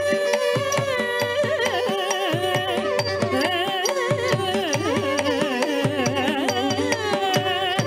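Carnatic music accompanying Bharatanatyam dance: a melody with sliding, ornamented turns over a steady drone, driven by quick, regular drum strokes.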